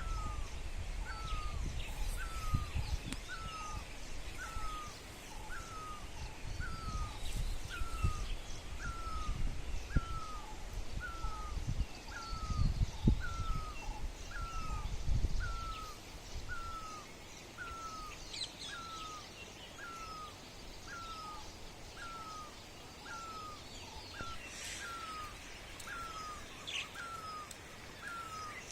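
Birds calling outdoors: one bird repeats a single short, hooked note about once a second without a break, while other birds chirp higher and more irregularly. A low rumble sits underneath for the first half and drops away about 16 seconds in.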